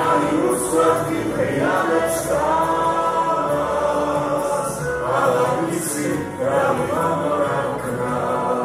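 A woman and a man singing a song together into microphones, amplified through the hall's sound system.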